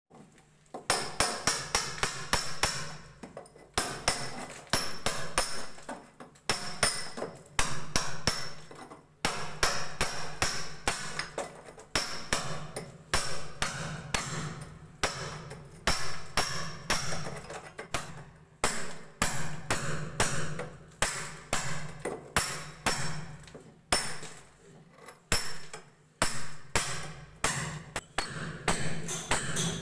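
Hammer striking a steel chisel against a plastered brick wall, chasing out a groove for a water pipe. The blows come in quick runs of several strikes with brief pauses between them.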